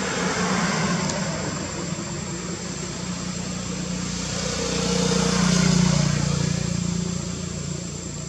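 Motor vehicle engine hum passing by, swelling to its loudest about six seconds in and then fading.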